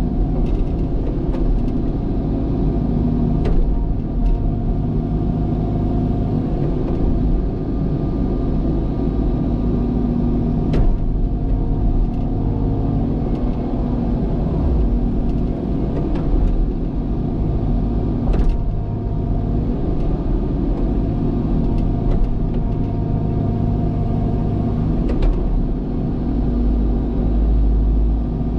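Cat excavator's diesel engine running steadily under working load, with a few sharp knocks spread through, about five in all.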